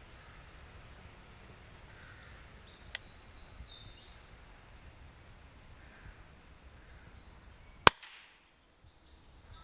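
Birds singing in woodland, then almost eight seconds in a single sharp crack of a pre-charged pneumatic air rifle firing a pellet.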